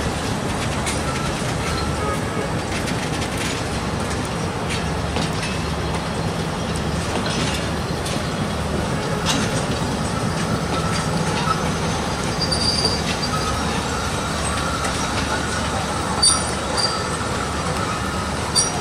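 Pakistan Railways passenger coaches rolling slowly past on departure: a steady rumble of wheels on rail with scattered clicks. In the second half come faint high tones and a few short, sharp wheel squeals.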